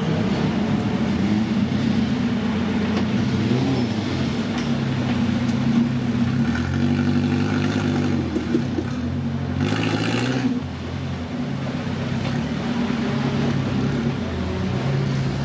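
Off-road 4x4 engine revving under load, its pitch surging up and down several times.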